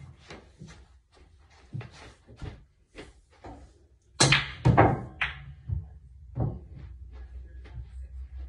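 Pool shot: the cue strikes the cue ball about four seconds in, followed by a quick run of sharp clacks and thuds as the balls collide and hit the cushions, with fainter knocks in the seconds before.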